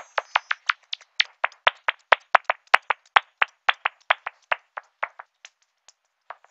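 Bat echolocation calls made audible through a bat detector's heterodyne output: a rapid train of dry clicks, about seven a second, coming faster and louder in the middle and thinning out near the end.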